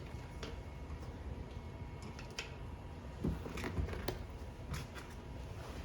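Tire lever being worked under the bead of a bicycle tire to pry it off the rim: scattered light clicks and scrapes over a low steady hum.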